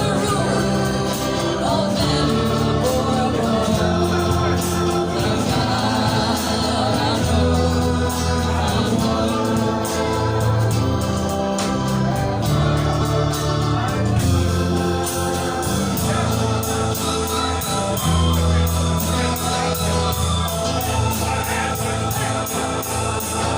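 Live band music with voices singing over held chords and a bass line that changes note every second or two, near the close of the song.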